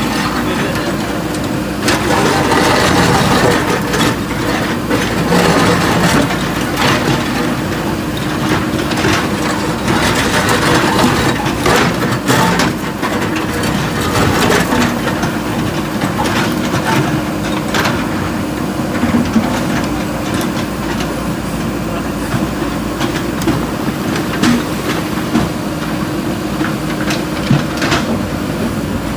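Diesel engine of a JCB 3DX backhoe loader running steadily under work, with repeated short knocks and clatter throughout.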